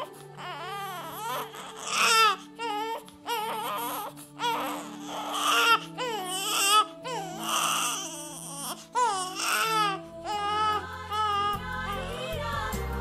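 Newborn baby crying in a string of short wavering cries over soft background music. The crying stops about ten seconds in, and the music carries on with a deep bass line coming in near the end.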